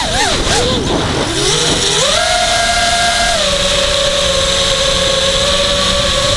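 Blade Conspiracy 220 quadcopter's motors and propellers whining, as heard from its onboard camera, the pitch following the throttle: it wobbles rapidly up and down for the first second or so, rises about two seconds in, then eases down a little past three seconds and holds steady.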